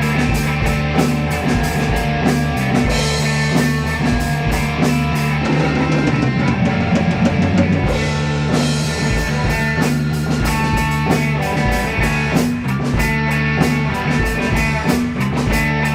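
Rock band jamming: electric guitar over drum kit with a steady bass line, loud and continuous, with a denser, noisier swell about five to eight seconds in.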